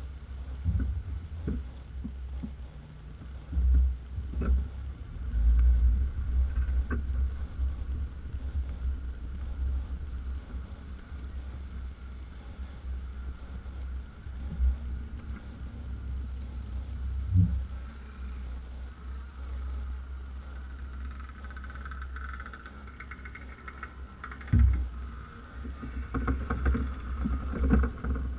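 Subaru Outback H6 crawling over rutted mud: a steady low rumble from the car, broken by several heavy thumps and knocks as the body and suspension hit bumps, the sharpest about three-quarters of the way through.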